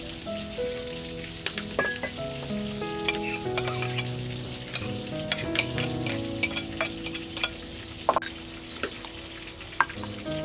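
Slow instrumental background music of held notes, with a run of sharp clicks and taps in the middle from a spoon clinking and scraping against a plate of chopped herbs.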